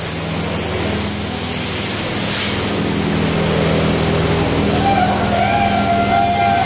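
Automatic car wash's high-pressure spray jets hissing steadily onto a car, with a low steady hum of machinery underneath.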